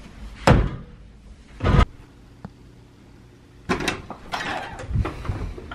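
Two heavy thumps of a person jumping down onto the floor, then a few seconds later the clicks, rattle and knocks of a hotel-room door's lever handle being pressed and the door unlatched and pulled open.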